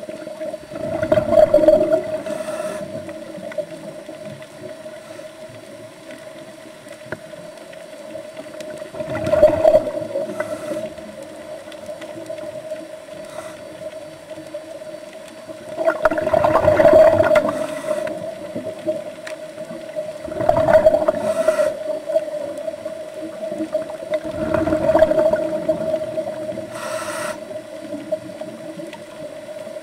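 Scuba diver breathing through a regulator underwater: a rush of exhaled bubbles five times, every four to eight seconds, with short faint hisses of inhaling, over a steady hum.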